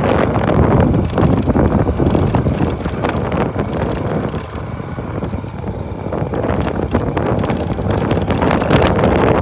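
Motorcycle running along a rough dirt track, its engine rumble mixed with wind buffeting the microphone and frequent short rattles and clicks from the ride over stones.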